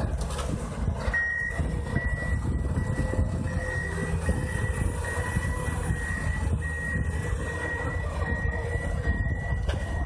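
Ponsse Buffalo forwarder running steadily with a low engine rumble, and from about a second in a steady high-pitched tone running over it with only short breaks.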